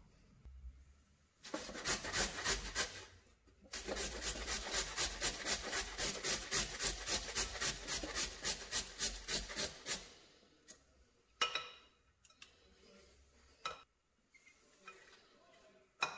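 Carrot grated on a stainless-steel box grater: quick rasping strokes, about four a second, in two runs that stop about ten seconds in. A few scattered sharp knocks follow.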